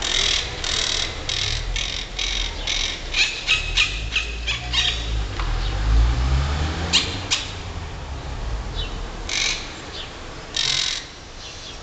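Monk parakeets calling: a quick run of about a dozen short, high-pitched calls over the first five seconds, then single calls a second or two apart, over a low steady rumble.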